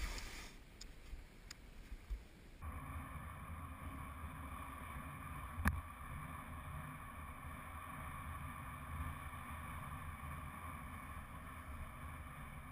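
A few faint clicks, then, about two and a half seconds in, a steady rumbling scrape of a loaded sea kayak's hull being dragged over wet sea ice, with one sharp knock near the middle.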